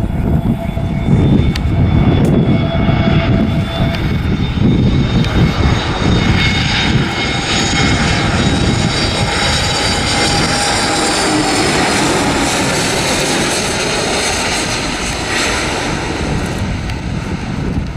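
Jet engines of an Airbus A321neo, CFM LEAP-1A turbofans, running in a steady loud roar. Several high whining tones drift in pitch around the middle.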